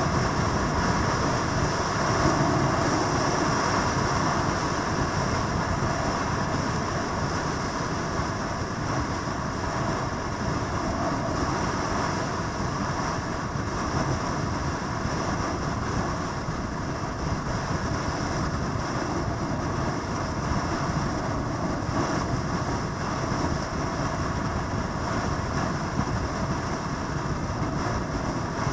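Steady vehicle noise: an even rumble and rush that continues without breaks or any single loud event.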